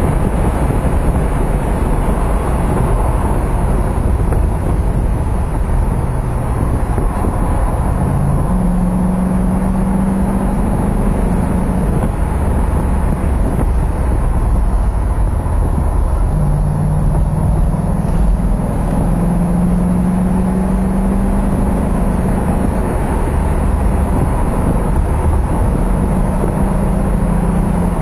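Mercedes-Benz 560SL's 5.6-litre V8 running at road speed, with tyre and wind noise, heard from inside the car. The engine note rises and falls a few times.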